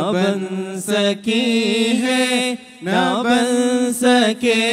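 A group of men singing an Urdu naat, a devotional song in praise of the Prophet, into microphones, in long held, melismatic lines with a brief pause for breath about two and a half seconds in.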